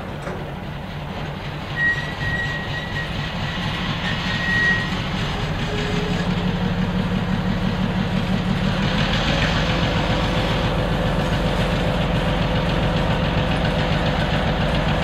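EMD SW1200 diesel switcher locomotive running as it moves slowly past with loaded lumber flatcars: a steady, pulsing engine rumble that grows louder as it nears. A thin high squeal sounds for a few seconds near the start.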